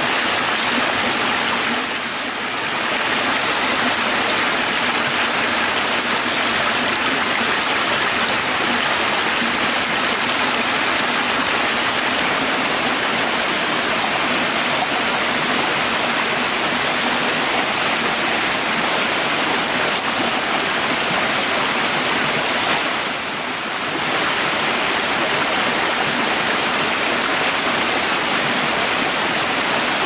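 Steady rushing of a small rainforest stream and waterfall running over rocks, dipping briefly twice.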